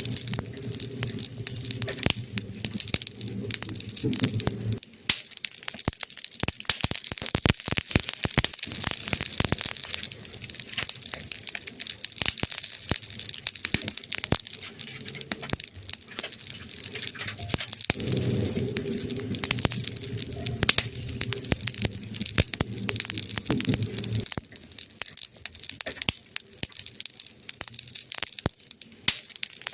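Campfire crackling, with a dense, irregular run of sharp pops and snaps from the burning wood. A low rumble sits under the crackle for the first five seconds or so and again for several seconds in the second half.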